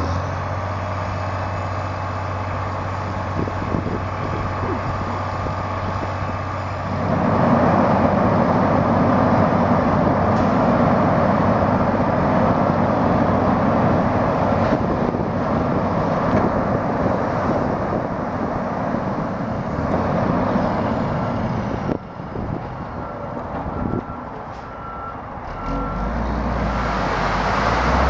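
Pavement milling machine and dump trucks running: a steady diesel drone that turns into a much louder grinding rush about seven seconds in and lasts about fifteen seconds. A truck's reversing beeper sounds near the end.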